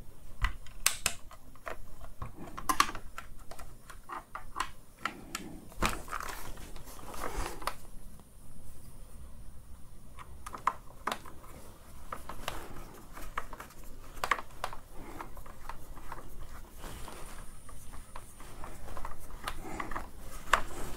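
Screwdriver turning a screw into the plastic housing of a Dyson V10 cordless vacuum, with irregular small clicks and scrapes of the tool and the plastic being handled.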